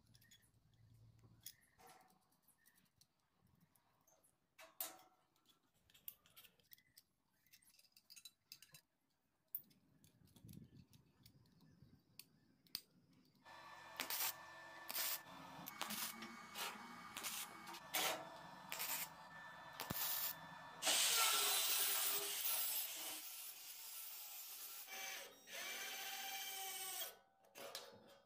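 Faint clicks of small steel parts being handled. About halfway in, a louder stretch of crackling, hissing welding starts and stops several times, loudest about three quarters of the way through.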